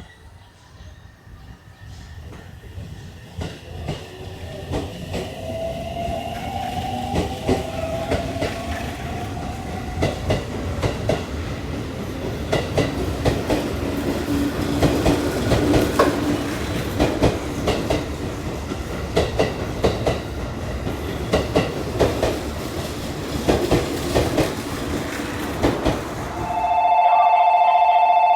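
Long electric commuter train running past the platform, wheels clacking over rail joints, growing louder over the first dozen seconds with a whine that slides in pitch. Near the end a loud steady two-tone sound starts.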